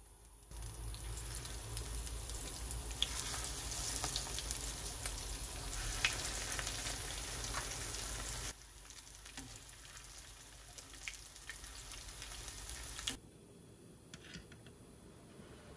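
Panko-breaded pork cutlets shallow-frying in oil in a frying pan: a steady sizzle with scattered crackles and pops. About halfway through the sizzle drops to a quieter level, and near the end it stops suddenly, leaving a few light clicks.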